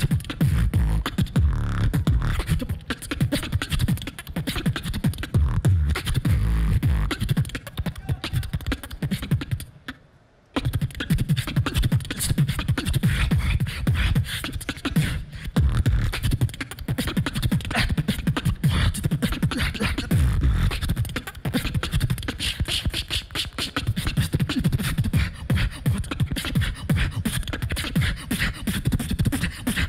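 Human beatboxing into a handheld microphone: a dense, fast pattern of deep bass kicks and crisp snare and hi-hat clicks, with a brief sudden break about ten seconds in before the rhythm picks up again.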